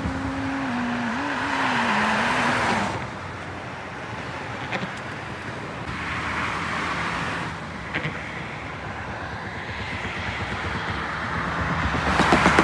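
Road and traffic noise from a moving vehicle, swelling louder as traffic passes about two seconds in, midway and near the end. A wavering hum runs through the first few seconds, and there are a couple of light knocks.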